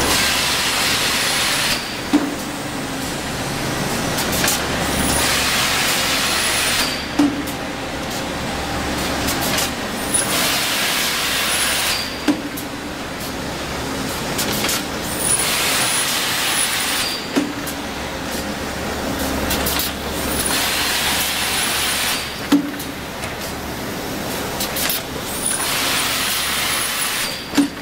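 A plastic thermoforming machine running through its cycle about every five seconds. Each cycle is a hiss of compressed air lasting a second or two, then a single sharp clunk, over a constant low machine drone.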